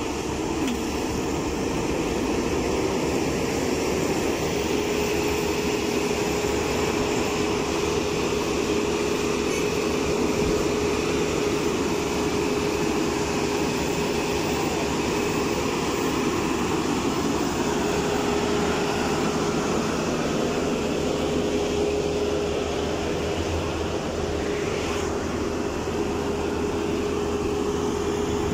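XCMG asphalt paver running steadily while laying asphalt, a constant engine drone with a steady whine over it.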